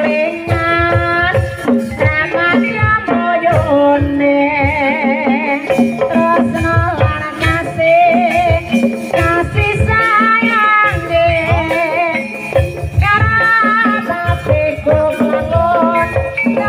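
Live Javanese gamelan music accompanying an ebeg dance: steady low drum strokes and bronze kettle-gong tones under a wavering, ornamented melody line.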